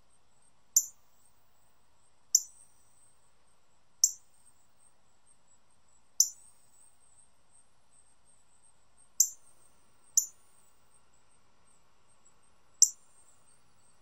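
Male northern cardinal giving sharp single chip calls, seven in all, spaced one to three seconds apart, each a short bright note falling in pitch.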